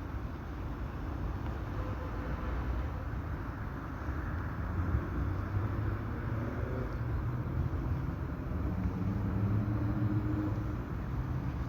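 Road traffic: a steady low rumble of passing vehicles, with one vehicle's engine slowly rising in pitch in the second half.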